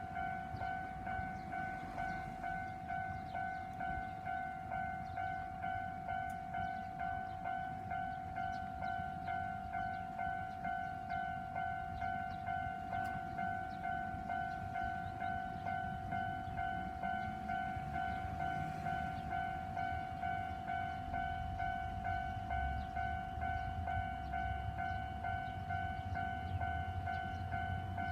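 Japanese railway level-crossing alarm bell ringing its steady, evenly repeated two-tone ding-ding, about one and a half strokes a second. A low rumble grows under it in the last several seconds.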